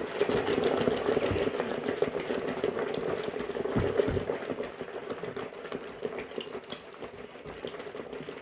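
Small washing machine running a wash cycle: a motor hum with water churning and sloshing, starting suddenly and easing off a little in the second half.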